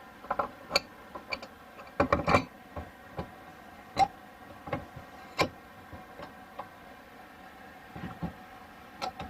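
Scattered clicks and light knocks from handling tools and plastic plumbing fittings, with a quick cluster about two seconds in, over the steady hum of a portable air conditioner.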